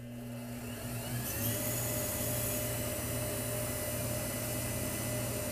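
Wood lathe motor switched on, its whine rising over about a second and a half as it spins up, then running steadily. It is turning a pen blank on its mandrel while polish is applied.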